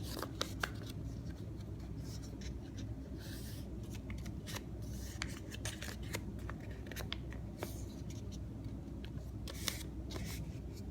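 Paper being handled, folded and creased by hand: bursts of rustling and crinkling with scattered sharp clicks.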